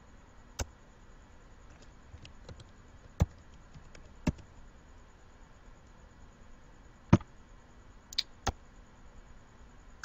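Scattered sharp clicks from a computer keyboard and mouse, about six in all, the loudest about seven seconds in and two close together near the end.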